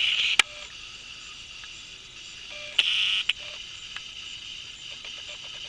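Crickets chirring steadily in the background, high-pitched and continuous, swelling briefly about three seconds in. A single sharp click comes about half a second in.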